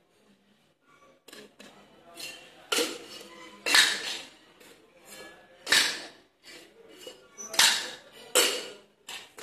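Steel cocktail shaker tins clanking as they are tossed and caught in flair-bartending practice: irregular sharp metallic clanks with a short ring, the loudest about four, six and eight seconds in.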